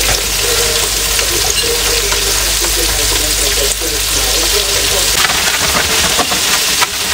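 Floured chicken pieces frying in hot oil in a frying pan on a gas stove: a steady, crackling sizzle.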